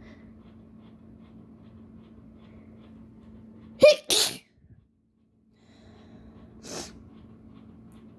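A person sneezes once, about four seconds in: a short rising 'ah' leads straight into a loud explosive burst, brought on by a nose-burning pinch of chikni snuff. A softer breathy puff comes about three seconds later.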